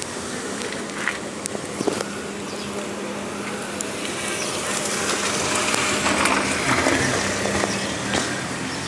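A small car driving slowly past close by, its engine and tyres growing louder to a peak about six to seven seconds in, then fading.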